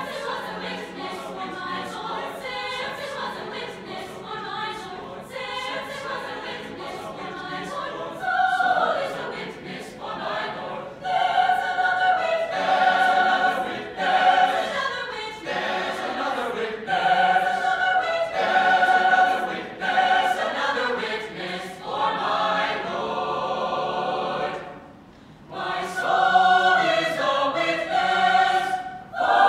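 Mixed-voice chamber choir singing unaccompanied in full harmony. The singing grows louder about a third of the way in, then breaks off briefly near the end before a loud re-entry.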